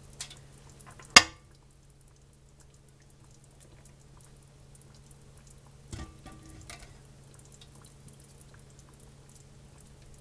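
Hot glass canning jars being lifted from a pressure canner with a jar lifter and set down on a towel: a sharp clink about a second in, then a knock with a short ring about six seconds in as a jar is set down. A steady low hum and faint crackling run underneath.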